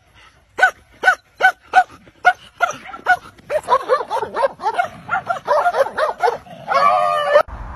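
A collie-type dog barking repeatedly in short, high-pitched barks about a third of a second apart, coming faster and running together after about three and a half seconds. Near the end a longer wavering cry that cuts off suddenly.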